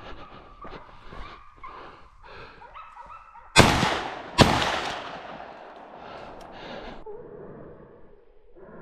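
Two shotgun shots, under a second apart, a little over three seconds in, each with a long fading echo. Hunting dogs bay and yelp before and after the shots.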